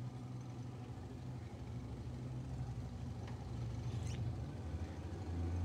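Small boat's motor running steadily with a low hum, which shifts to a lower, louder note about five seconds in.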